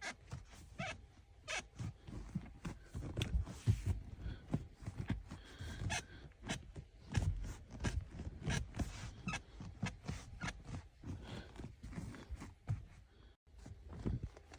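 Mercedes-Benz GLC seat leg support (extendable thigh support) squeaking and creaking as it is worked, with many short irregular squeaks: an unwanted squeak in the seat's leg-support mechanism.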